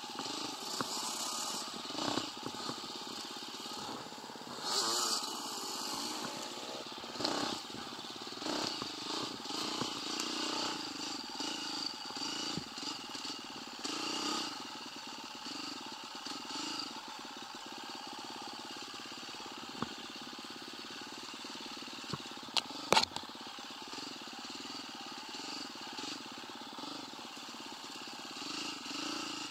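125cc motorcycle engine running while being ridden, its sound rising and falling. A single sharp knock sounds late on.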